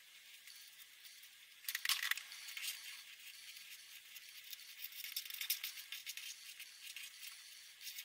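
Marker pen scratching on paper in quick colouring strokes: a faint hiss at first, then from about two seconds in a busier run of dry, scratchy strokes and small clicks.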